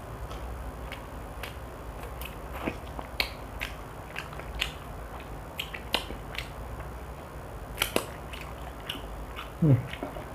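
Close-up eating sounds of a person gnawing and chewing fried chicken off the bone: scattered sharp clicks and crunches, with a short hum near the end.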